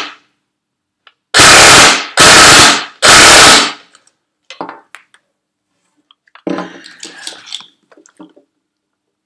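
Tokyo Marui P90 High Cycle airsoft electric gun firing three short full-auto bursts in quick succession, each under a second, at a very high rate of fire. Afterwards a few faint clicks and rustling.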